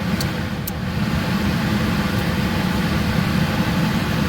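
Gas furnace blower coming on and running steadily, a low hum under a rush of air, with two sharp clicks near the start. The unit is kicking on as the loose terminal on its control board makes contact.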